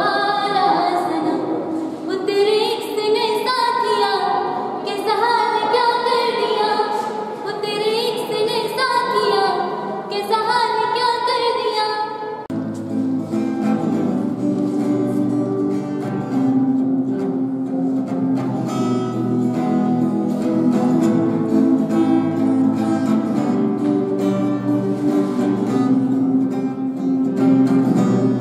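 A woman singing unaccompanied, a flowing melody with held notes. About twelve seconds in it cuts abruptly to a steel-string acoustic guitar with a capo, strumming chords steadily.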